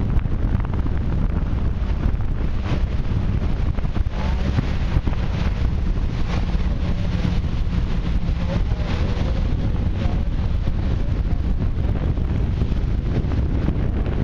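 Wind buffeting the microphone over a motorboat running at cruising speed: a low engine drone and water rushing and splashing past the hull.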